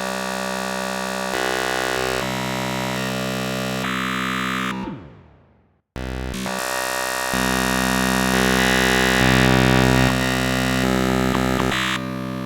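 Dark MIDI rendition of a Messenger ringtone played on a synthesizer: thick, dense chords with a great many notes sounding at once. The first passage fades out about five seconds in and cuts off, and a second, louder passage starts abruptly a second later and begins fading near the end.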